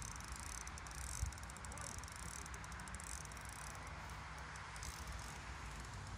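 Faint, quick clicking of a fishing reel in short spells, as line is worked while a hooked carp pulls against the bent feeder rod.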